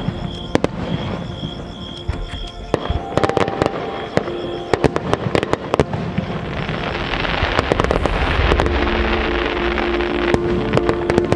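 Fireworks going off: a quick run of sharp bangs from shells bursting, thickening into a dense crackling hiss about seven seconds in, then more scattered bangs.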